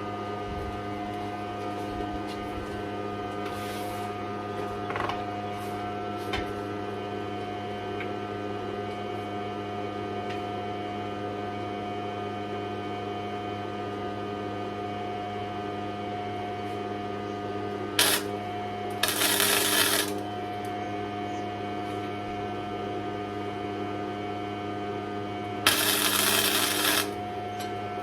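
Two short tack welds, each about a second long, fixing small steel washers to a truck chassis frame: the first comes about two-thirds of the way in and the second near the end. Under them runs a steady electrical hum.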